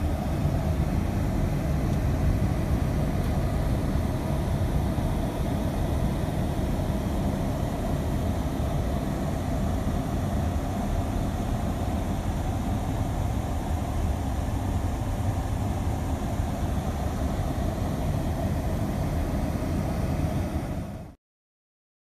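Steady low rumble inside a moving vehicle's cabin, engine, tyres and wind together, while driving through a blizzard. It cuts off suddenly about a second before the end.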